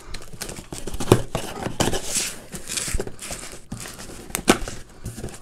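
Cardboard shipping box being opened with a knife: the blade slitting the packing tape, with cardboard scraping and rustling and a few sharp knocks and clicks as the flaps are handled.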